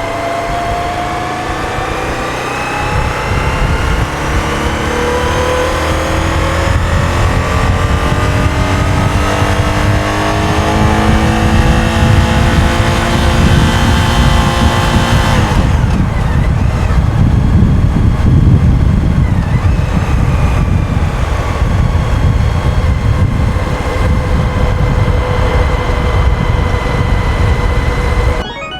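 Suzuki SV1000's 1,000 cc V-twin running through a GPR aftermarket muffler while ridden. The engine's pitch rises steadily for about fifteen seconds under acceleration, then drops suddenly as the throttle closes and holds steady. A heavy low wind rumble on the microphone runs underneath.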